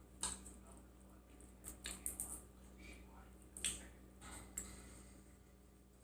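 Faint chewing and mouth smacks, a person eating shrimp, with a few short clicks at irregular moments.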